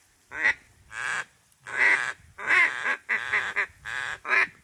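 A run of loud duck quacks, about eight, unevenly spaced, some short and some drawn out.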